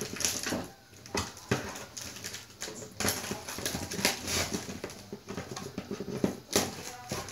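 Irregular clicking and rustling of plastic toy accessories and packaging being handled.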